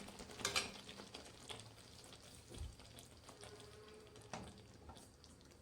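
Faint sizzle of capsicum gravy in the pan just after the stove is switched off, with a few light clicks scattered through.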